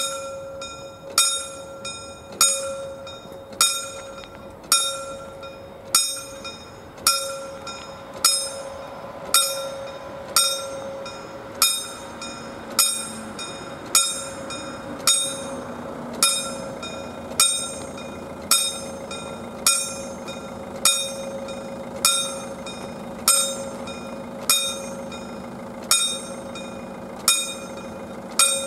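Level-crossing warning bell of a Czech AŽD 71 crossing signal striking steadily about once a second, each strike ringing on into the next, as the crossing warns of an approaching train.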